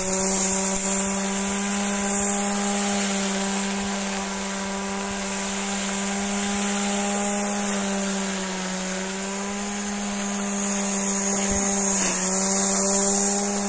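Corded electric string trimmer running at full speed with a steady whine, its nylon line cutting grass. The pitch sags slightly under load a couple of times, most clearly near the end.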